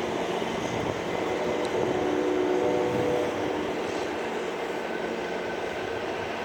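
A train running by: a steady rumbling noise with faint held tones in the middle, easing off a little in the second half.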